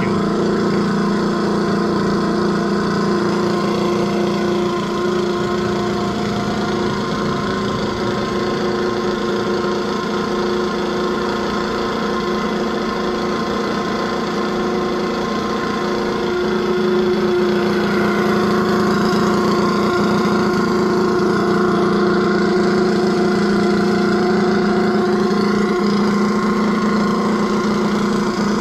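Vacuum pump running steadily with a pitched mechanical hum as it pulls vacuum on the oven chamber through the cold trap.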